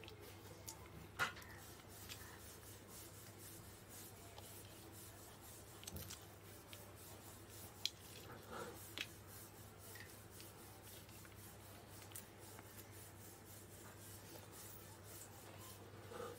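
Faint, scattered clicks and small crackles of raw white prawn shells being cracked and peeled off by hand, over a low steady hum.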